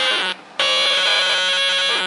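Tiny toy keyboard played through a circuit-bent noise/filter box, its notes crunched up into harsh, distorted electronic tones. Two long held notes, the first cutting off about a third of a second in and the second starting just after half a second.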